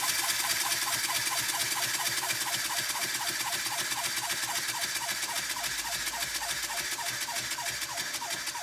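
Wooden model steam engine running on compressed air: a rapid, even chuff of exhaust puffs, about six a second, over a steady hiss of air. It grows slightly quieter near the end.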